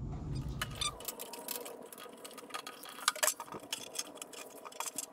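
Irregular light clicks and taps of hands working a Wright Vac blower unit, fitting its drive belt onto the blower pulley.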